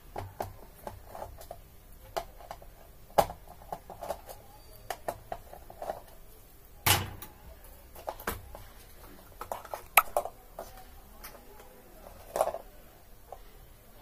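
Handling noise from the opened Roland SPD-20X drum pad: scattered clicks, taps and knocks as its circuit boards and plastic case are moved about by hand, with a few sharper knocks among them.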